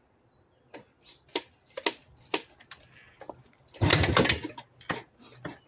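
1990 Yamaha YZ490 single-cylinder two-stroke being kickstarted: a series of sharp clicks and knocks from the kickstart gear, then a loud half-second rush about four seconds in as it is kicked through and the engine turns over without firing. It turns over good but won't run, after sitting for a month.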